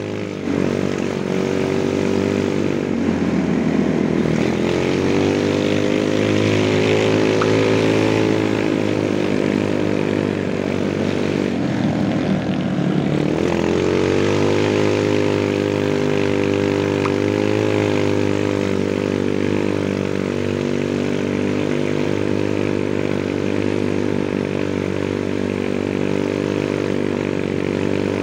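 Automatic scooter engine running while riding, a steady engine drone whose pitch dips and climbs back twice, a few seconds in and again about halfway, as the throttle is eased and reopened.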